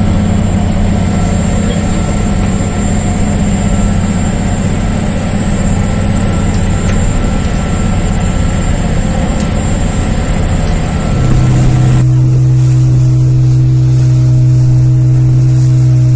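A ferry's engines running at cruising speed, a steady low drone with a faint high whine over the rush of the wake. About eleven seconds in it gives way to a louder, steadier low engine hum.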